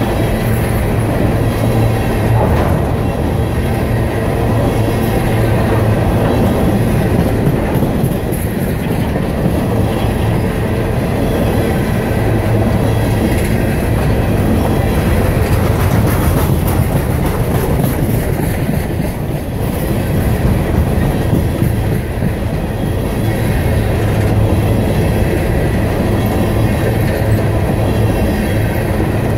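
A train of empty coal hopper cars rolling past, with a steady rumble of steel wheels on rail and clickety-clack over the rail joints.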